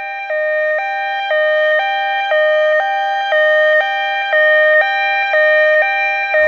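Two-tone hi-lo siren, switching between a higher and a lower pitch about every half second, growing louder over the first few seconds and then holding steady.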